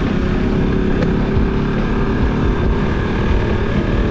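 Motorcycle engine running steadily while being ridden, with a heavy low wind rumble on the microphone.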